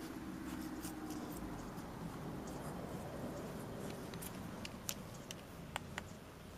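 Golden Retriever puppies suckling at their mother: faint smacking and clicking mouth sounds, with a few sharper clicks in the second half.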